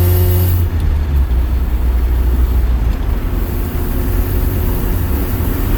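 Car engine pulling under throttle, then easing off about half a second in, leaving a steady low rumble of engine and road noise. The car is one the driver finds low on power.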